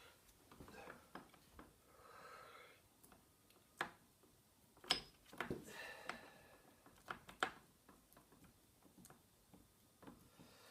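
Hand tools clicking and tapping on metal lathe apron parts during disassembly: scattered light taps, with a few sharper knocks about four to seven and a half seconds in.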